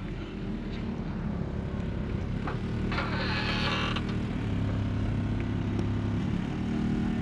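Compact pickup's engine running under an open hood with a steady low drone that grows stronger about halfway through, and a brief hiss about three seconds in.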